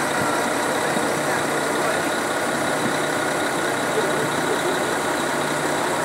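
Truck-mounted concrete boom pump running steadily, its diesel engine driving the pump.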